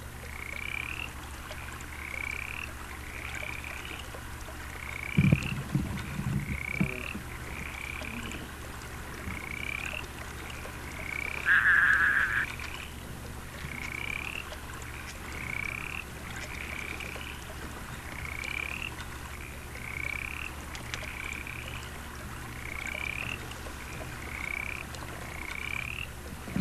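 Night-time frog chorus: a short rising peep repeating about once a second over a steady low hum. A few low thumps come about five seconds in, and a louder noisy rush lasting about a second comes near the middle.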